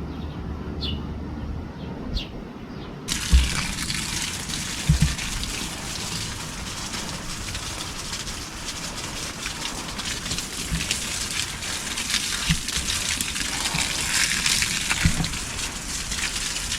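A few short bird chirps, then about three seconds in water starts gushing steadily onto garden plants as they are watered, with a couple of low knocks soon after it starts.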